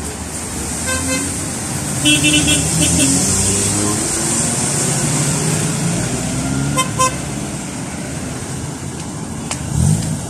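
Road traffic running by steadily, with short car-horn toots: one about a second in, more around two seconds in, and a quick double toot about seven seconds in.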